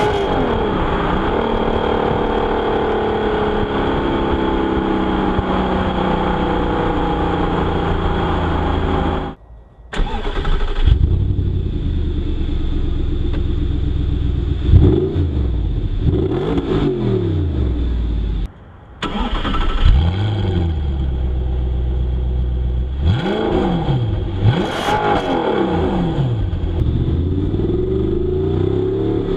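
Audi R8's 4.2-litre V8 heard through its exhaust: idling with the revs easing slowly down over the first nine seconds or so, then a series of short throttle blips, each rev rising and dropping back to idle. Two brief gaps break the sound, near ten seconds in and again near nineteen.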